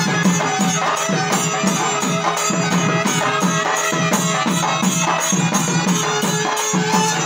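A group of mathalam barrel drums beaten together in a brisk, steady folk rhythm, with a held pitched note sounding over the drumming.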